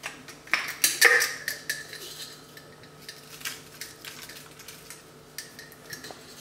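Clinks and taps from a glass jar of coarse salt being handled, with a scatter of small clicks as salt is sprinkled by hand over raw meat in a glass baking dish. The busiest clatter comes about a second in, then thins to occasional ticks.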